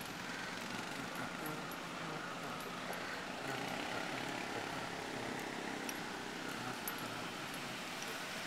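Steady street noise heard from a moving bicycle: an even rush of air and road noise, with motor vehicles running nearby.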